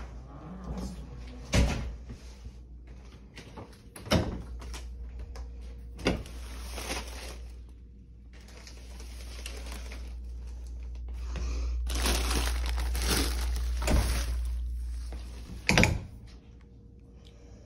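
Interior doors and a closet door being opened and shut, giving several sharp knocks and latch clicks a few seconds apart, with a stretch of rustling noise near the middle.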